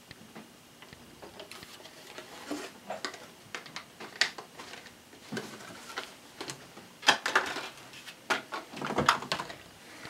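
Irregular clicks, taps and knocks of a DDR3 laptop memory module being worked into a 2011 iMac's memory slot, plastic and metal against the aluminium case, with the loudest cluster of clicks about seven seconds in and more around nine seconds.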